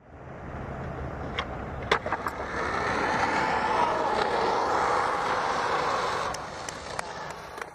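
Skateboard wheels rolling over pavement, growing louder toward the middle and fading near the end, with a few sharp clicks along the way.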